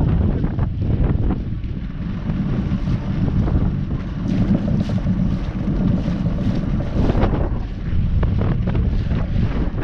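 Wind buffeting the microphone: a loud, gusty rumble that rises and falls, with a few faint knocks.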